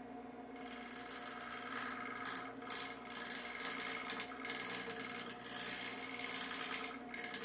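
Turning tool cutting a spinning wooden workpiece on a wood lathe, a scraping cut that starts about half a second in and comes and goes in short strokes, over the lathe's steady running hum.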